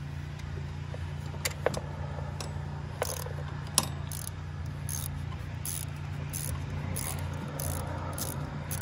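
Ratchet and 5/8-inch spark plug socket turning out a tight spark plug: a few sharp metallic clicks, then from about three seconds in a short burst of ratchet clicking about every two-thirds of a second as the handle is swung back and forth.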